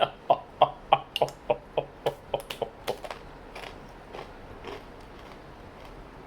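Someone chewing a mouthful of crunchy pita chips: about three crunches a second for the first three seconds, then a few softer chews dying away.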